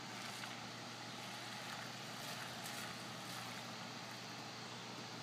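Steady rushing of released river water, an even noise that holds at one level throughout, with a few faint ticks.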